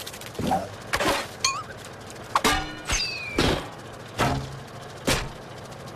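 Cartoon sound effects in quick succession: about seven short knocks and swishes, with two high whistle-like pitch slides, one wavering up and one falling, over light background music.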